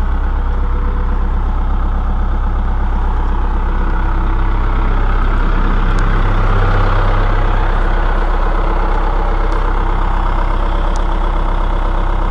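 John Deere 190E excavator's diesel engine idling steadily, getting a little louder around the middle.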